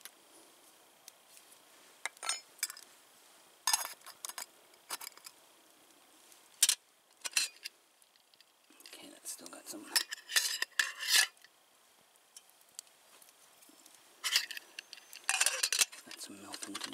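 A metal spoon clinking and scraping in a camp cookpot, and metal lids knocking against the cookware as a pot and kettle are handled. Scattered sharp clanks, with a busier run of them around the middle and another near the end.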